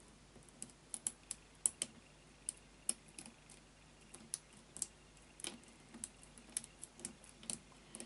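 Lock pick and tension wrench clicking against the pins inside an Avocet pin-tumbler padlock. The small metallic clicks are faint and irregular, a few a second, as the pins are worked under tension.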